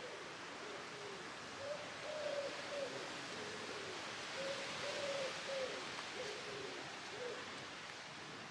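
A bird's low hooting call: a run of soft, wavering notes repeated over several seconds, over a steady outdoor hiss.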